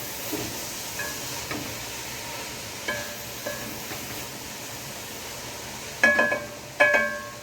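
A metal utensil clinking against a cooking pot a few times, then two louder ringing clanks near the end, over a steady hiss of the callaloo pot steaming on the stove.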